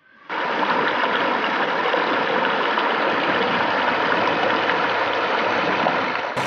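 Stream water rushing over a low stone weir and splashing into the pool below: a steady rush that starts suddenly just after the beginning.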